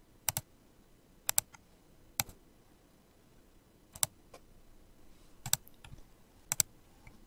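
Computer mouse clicks: about six sharp clicks, each a quick press-and-release pair, spaced a second or so apart.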